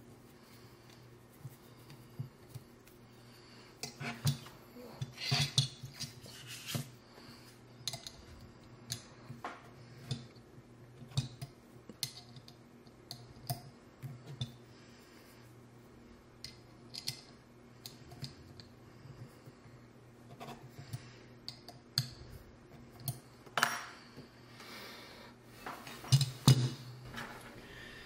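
Irregular small metal clicks and clinks of a hex key and screws being worked into the metal pivot arm of a Hapstone RS knife sharpener, with small parts handled and set down. The clicks come in flurries, busiest twice: a few seconds in and again near the end.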